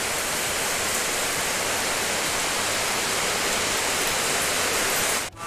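Heavy rain falling steadily, a dense even hiss that cuts off abruptly just before the end.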